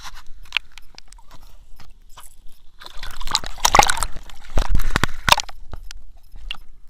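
Water sloshing and splashing as a caught largemouth-type bass is let back into a pond, with scattered knocks and clicks of handling on the microphone. The loudest part is a splashy burst about three seconds in, followed by two heavy knocks.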